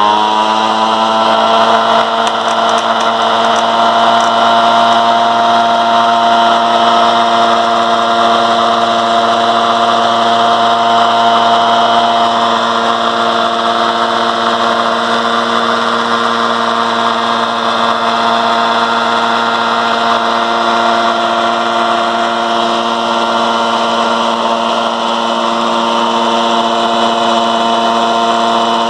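Sewing-machine motor spinning a homemade magnet-and-coil generator at full speed: a loud, steady whine with many overtones that rises in pitch as it spins up in the first second, then holds steady.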